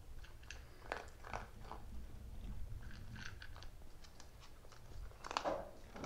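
A small dog chewing and crunching on something, with irregular crisp crunches and a louder burst of crunching near the end.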